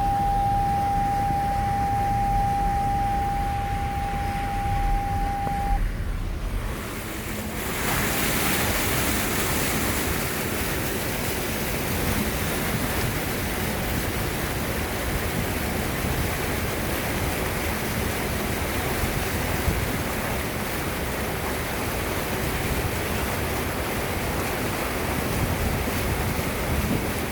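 A steady high-pitched tone over a low rumble for about six seconds. Then a loud, even rushing noise of flowing rainwater, with wind buffeting the microphone.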